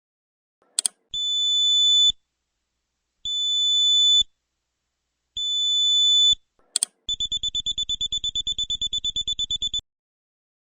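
Qlight signal light's electronic alarm buzzer sounding two of its tone patterns, each started by a click. First come three high steady beeps of about a second each, roughly two seconds apart. Then a rapid pulsing beep at about ten pulses a second runs for nearly three seconds and cuts off suddenly.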